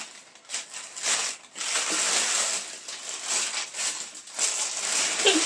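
Grey gift wrapping crinkling and rustling in bursts as a small present is torn open and the wrapping pulled off by hand.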